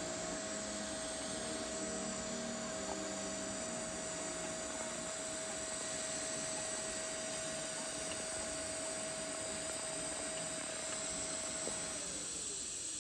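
TIG welding arc on stainless steel tubing: a steady hiss with a steady whine that drops in pitch near the end.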